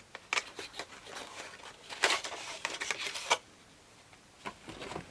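Makeup packaging being handled and opened by hand: a run of small clicks, taps and rustles that stops about three seconds in, with a few soft clicks near the end.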